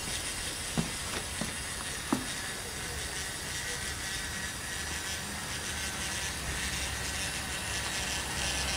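A K'Nex plastic model gives four sharp clicks as it is handled, the loudest about two seconds in, then a steady hiss with a low hum.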